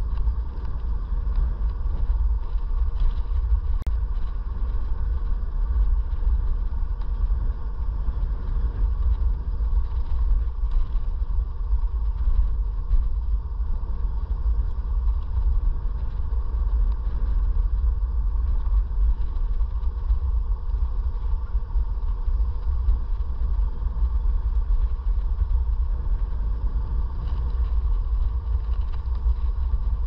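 Riding an iScooter E9D electric scooter: a steady, heavy low rumble of wind and road on the microphone, with a faint, even electric motor whine running under it.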